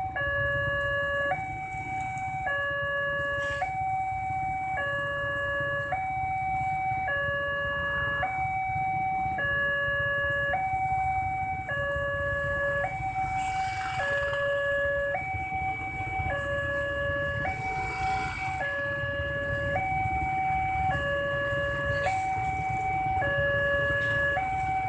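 Railway level-crossing warning alarm sounding with the gates down: a steady electronic two-tone signal that switches pitch about once a second, over a low rumble of idling motorcycle engines.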